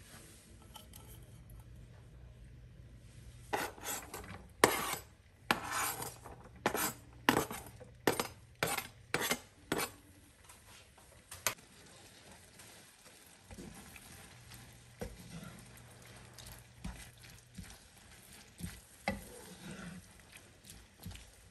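Diced carrots and green pepper tipped from a plastic bowl into a frying pan of mince, peas and sweetcorn, with a quick run of about a dozen sharp clatters. After that comes softer scraping as a wooden spoon stirs the mixture in the pan, with a few light knocks.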